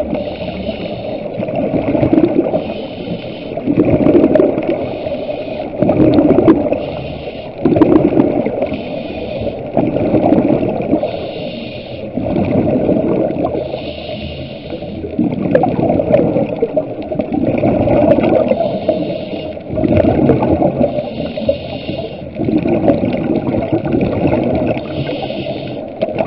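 Scuba diver breathing through a regulator underwater: a hiss on each inhale alternating with a gurgling rush of exhaled bubbles, about one breath every two seconds.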